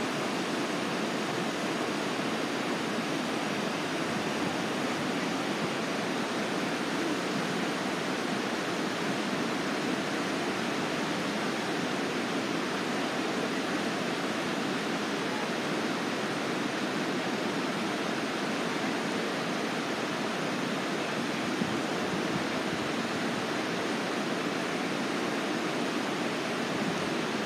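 Steady rushing water, an even unbroken hiss with no distinct events.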